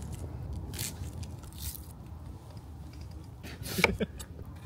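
A kitchen knife cutting through raw vegetables on a wooden cutting board: a few crunching cuts and knocks of the blade on the board, the loudest near the end, over a low steady rumble.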